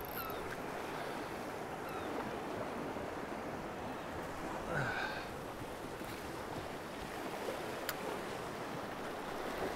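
Sea swell washing over the rocks, a steady rushing with some wind on the microphone. A brief louder sound rises about halfway through, and a single sharp click comes near the end.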